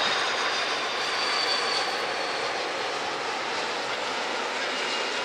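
Airbus A330 jet engines on final approach, passing low overhead: a steady rush of engine noise with a faint high-pitched whine above it.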